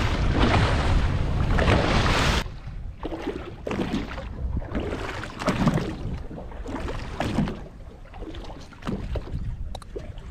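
Wind on the microphone and water rushing along the hull of a fishing boat at sea. About two seconds in this cuts off suddenly to quieter wind and water lapping against the hull, with a few soft bumps.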